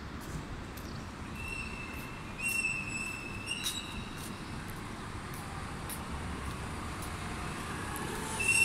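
Street traffic ambience: a steady low rumble of road traffic, with a few brief high-pitched tones about one to three and a half seconds in and scattered light clicks.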